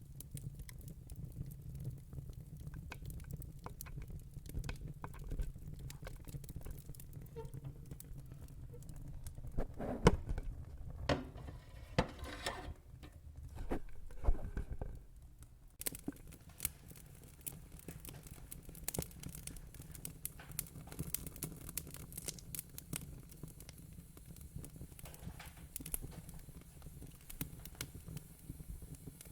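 Fire crackling: scattered sharp pops and ticks over a low steady rumble, with a denser, louder run of crackles about a third of the way in.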